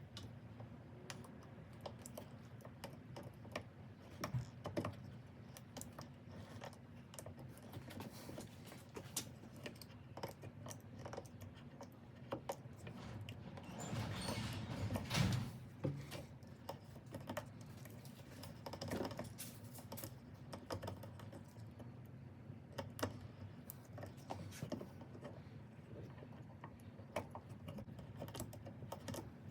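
Irregular light clicks and small knocks from hand work on a ratchet handle's soft grip, with a louder scraping stretch about halfway through.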